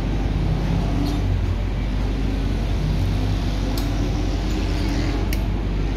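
Large bus diesel engine idling with a steady low rumble. A few faint sharp taps from hand tools on metal sound over it.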